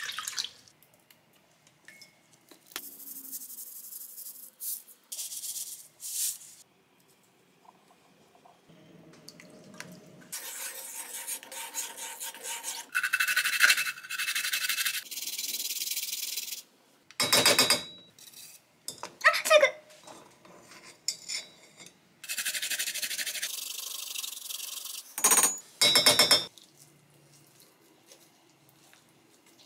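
A string of separate kitchen sounds around a ceramic donabe pot: water poured in at the start, then seasonings added with clinks and short sharp knocks. About halfway through comes a steady rasping of several seconds as garlic is grated on a small glass grater.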